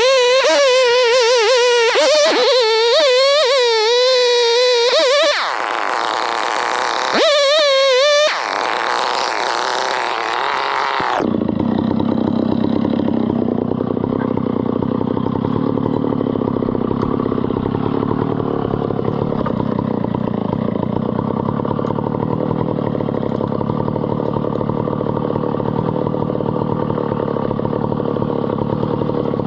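Engine running with a whining tone whose pitch wavers up and down for the first ten seconds or so. About eleven seconds in it changes abruptly to a steady, even drone.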